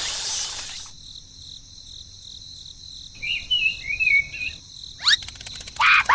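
A steady high insect-like trill, with short warbling bird-like chirps about three seconds in and loud falling whistle-like calls near the end.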